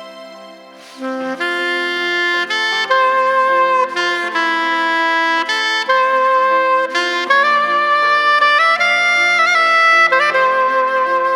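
Saxophone playing a slow melody of long held notes over a soft accompaniment, coming in about a second in.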